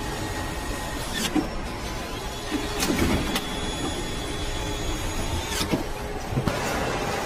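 Car assembly line ambience: a steady machinery hum with scattered clicks and knocks, a few light thuds about three seconds in. A louder hiss takes over near the end.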